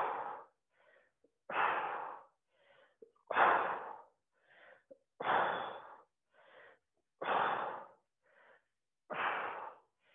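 A woman's hard breathing through an exercise set: a forceful exhale about every two seconds, six in all, each followed by a quieter intake of breath, in time with repeated side-lying leg lifts.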